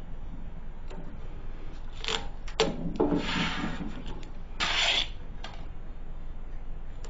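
Tape being pulled off the roll and pressed onto a muffler casing, three short rasping runs about a second apart, with some handling of the muffler in between.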